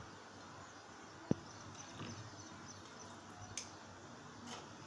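Quiet handling sounds as cooked basmati rice is added to an aluminium pot over chicken gravy: a soft knock about a second in and a few faint ticks.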